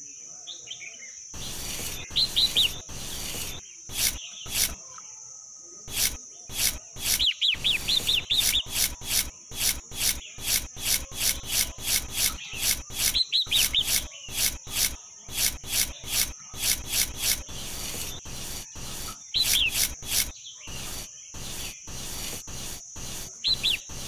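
A small trowel scraping and smoothing wet cement in quick, irregular strokes, about two or three a second at the busiest. Birds chirp briefly now and then over a steady high-pitched hum.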